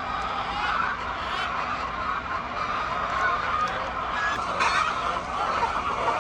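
A flock of poultry calling together, many overlapping clucks and squawks in a steady din.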